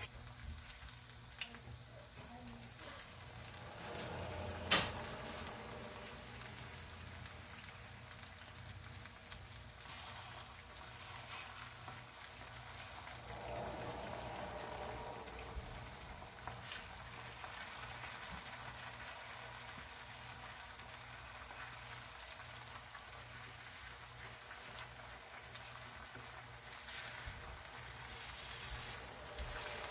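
Small tortillas dipped in red chile sauce frying in oil on a griddle pan: a steady, crackling sizzle. One sharp knock sounds about five seconds in.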